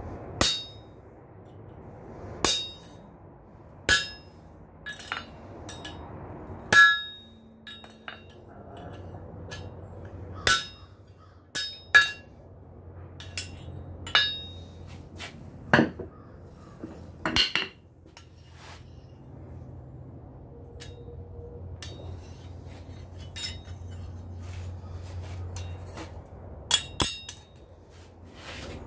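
Hand hammer striking a punch through hot steel on an anvil, punching a hanging hole in a spoon handle. Single blows, a second or two apart, each with a short bright metallic ring; several seconds without blows in the second half, then two last blows near the end.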